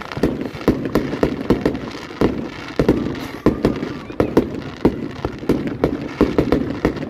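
Aerial fireworks going off in a rapid, uneven series of bangs, about three a second, each with a short booming echo.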